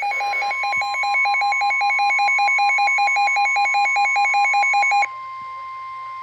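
A rapidly pulsing electronic alert tone, several beeps a second on two alternating pitches, sounds over a steady single-pitch NOAA Weather Radio warning alarm tone that sets in just after the start. About five seconds in, the pulsing stops and the steady alarm tone continues alone, announcing a new warning.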